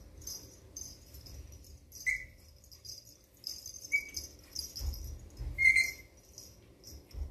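Black Shih Tzu puppy giving three short, high-pitched squeaks about two seconds apart as it plays, over light scratchy rustling.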